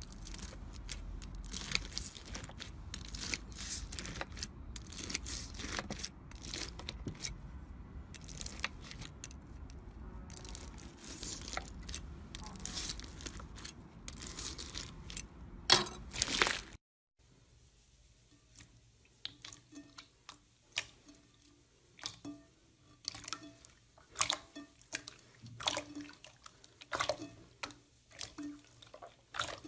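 Fishbowl slime full of plastic beads crackling and crunching as a thin blade scores it, with a loud sharp crack shortly before it cuts off about 17 seconds in. Then clear purple slime pressed and squeezed by fingers, giving separate sticky pops and clicks, a few each second.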